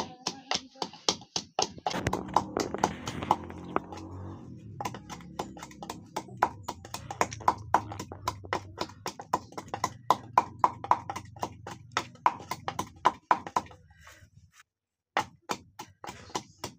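Wooden pestle pounding garlic cloves in a small wooden mortar: a steady run of hollow wooden knocks, about three to four a second, that pauses briefly near the end and then resumes with a few more strokes.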